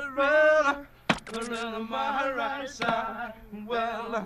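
A song with a man singing long, held notes, with a short sharp click about a second in.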